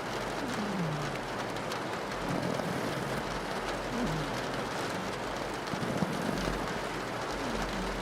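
Steady rain on a window with a pug snoring over it: a few short low sounds that fall in pitch, roughly every three to four seconds.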